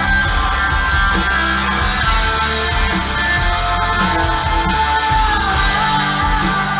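Rock music with electric guitar and singing over a steady drum beat.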